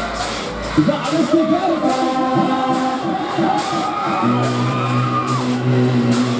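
Loud dance music with a sung vocal and a steady beat, played over a fairground ride's sound system; a held low note comes in about four seconds in.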